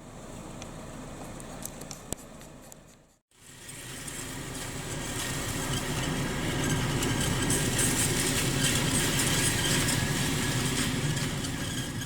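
Steady running noise of a car with its engine idling, cut off about three seconds in and resuming louder after a brief gap.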